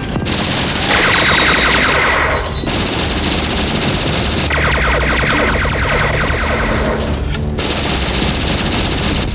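Anime-style machine-gun sound effect standing in for a minigun: very rapid, evenly spaced shots in two long bursts, one about a second in and a longer one from about four and a half seconds in, over a dense, loud wash of noise.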